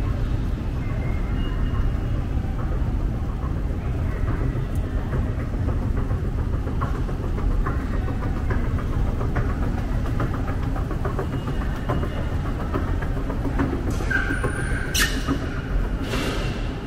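Running escalator: a steady low rumble from its drive and moving steps, with scattered light ticks, a short high tone, and two sharp knocks near the end as the top of the escalator is reached.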